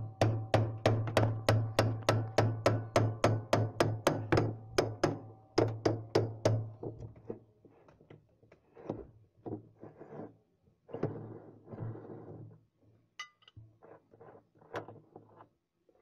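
Hammer striking a metal tool on the tub nut of a top-load washing machine, about three sharp metal blows a second, to loosen the nut that holds the tub to the transmission shaft. About six or seven seconds in the steady hammering stops, giving way to scattered softer knocks, scraping and a metallic clink.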